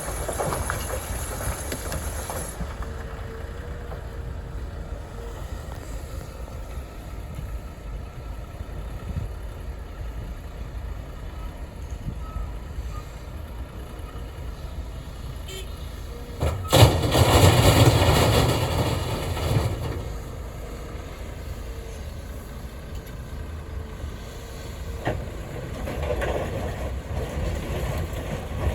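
Heavy diesel construction machinery running steadily, a CAT 330F excavator working beside dump trucks, with a loud burst of rushing, crashing noise lasting about three seconds a little past halfway.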